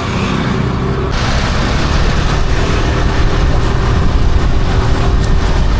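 Steady low rumble of a running motor vehicle with road noise, growing louder about a second in.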